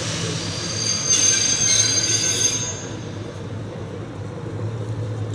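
Wheel squeal from a slow-moving SNCF X 2800 diesel railcar on curved station track. A high-pitched squeal swells about a second in and fades out near the middle, over the steady low hum of the railcar's diesel engine.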